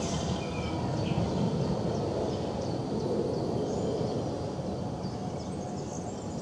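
Tram rolling away along its track, its low rumble slowly fading.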